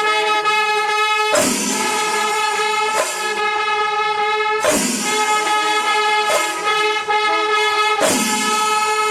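Music: held, pitched instrumental tones with a strong hit about every three seconds.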